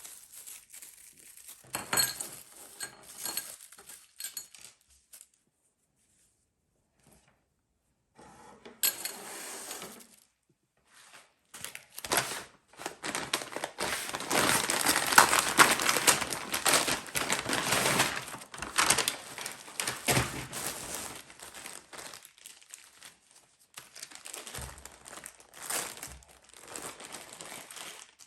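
Crinkling and rustling handling sounds with a few clinks, densest and loudest over a long stretch in the middle, after a short quiet pause.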